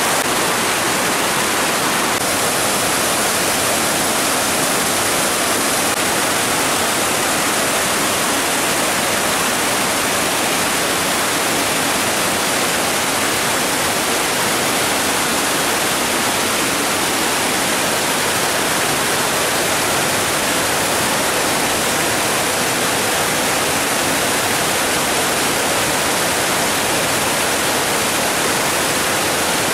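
Waterfall and stream cascades: water pouring over rocks in a steady, loud rush with no breaks.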